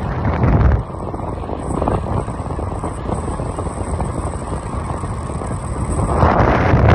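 Wind rushing over the microphone, with tyre and road noise from a car driving along. The rush turns duller about a second in and brightens again near the end.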